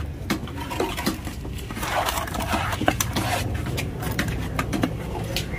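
Irregular sharp knocks of a large knife cutting through a tuna head on a wooden log chopping block, over a low steady background rumble.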